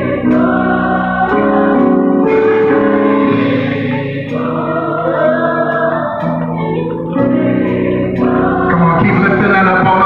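Live gospel music: a men's vocal group singing sustained harmonies into microphones, the chords held and changing every second or two.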